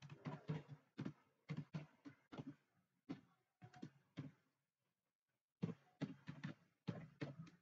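Computer keyboard keys being typed in quick bursts of clicks, with a pause of about a second past the middle.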